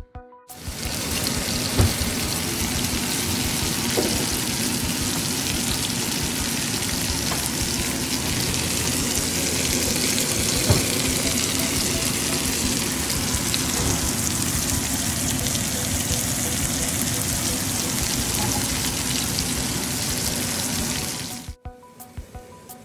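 Chicken pieces sizzling as they fry in oil in a nonstick pan: a loud, steady hiss that cuts off near the end, with faint background music underneath.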